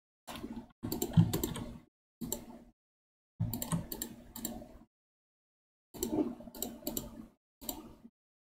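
Computer keyboard keys and mouse buttons clicking in about six short clusters, with silence between them.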